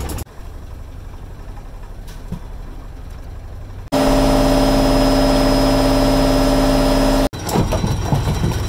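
A fishing boat's engine running steadily with a low rumble. About four seconds in, a much louder, steady pitched hum starts abruptly and cuts off just as abruptly about three seconds later.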